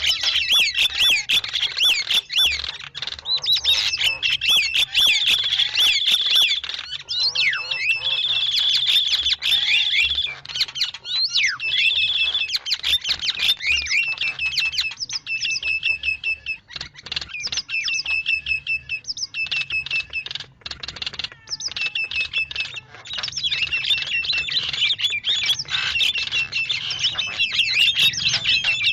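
Starlings (jalak) calling: continuous rapid chattering mixed with repeated high whistled notes, the kind of call track played to lure wild starlings.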